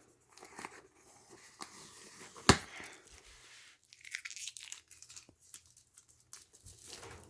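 Tape being peeled and torn off a cardboard box, with scratchy tearing and crinkling and one sharp snap about two and a half seconds in.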